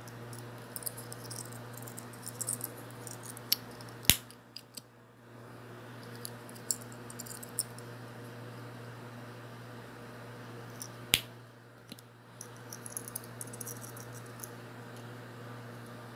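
Small gold-tone metal photo lockets being handled: light metallic ticks and clinks, with two sharp clicks about four and eleven seconds in as the lockets are closed and set down. A steady low hum runs underneath.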